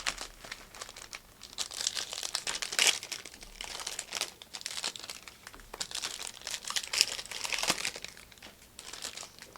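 Plastic trading-card pack wrappers crinkling and tearing as packs are handled and opened, in irregular crackly bursts.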